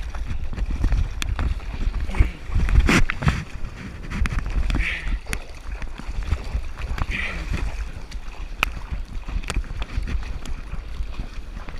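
Wind buffeting the microphone over the low rumble of ocean surf, with scattered clicks and a louder rush about three seconds in.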